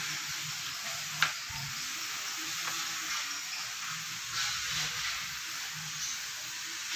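Steady background hiss, with a single sharp click a little over a second in.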